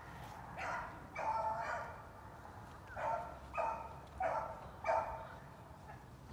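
Beagle baying while running a rabbit on the scent trail: about six bays, the first two drawn out and the last four shorter and evenly spaced.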